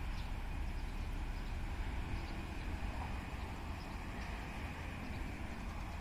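Low, steady rumble of a distant diesel locomotive approaching slowly, with faint bird chirps above it.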